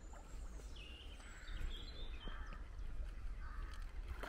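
Small birds singing and chirping over a steady low rumble of outdoor background noise.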